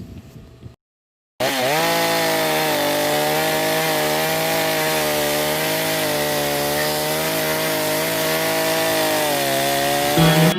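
Two-stroke chainsaw engine running at high revs, steady and loud. It starts abruptly about a second and a half in and stops about ten seconds in.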